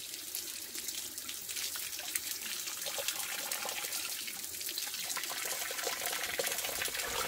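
A thin stream of spring water runs steadily off the end of a cut green plant stem used as a spout and splashes onto rock and shallow water, falling fairly hard, like water from a tap.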